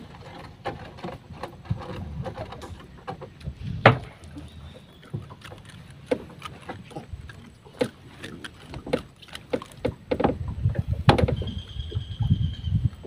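Paddle strokes and knocking on a small boat's hull and deck, with water sloshing underneath; sharp knocks about four seconds in and again near eleven seconds.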